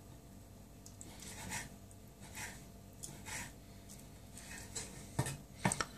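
Kitchen knife slicing sun-dried tomato on a wooden chopping board: faint cutting strokes under a second apart, then a few sharper taps of the blade on the board near the end.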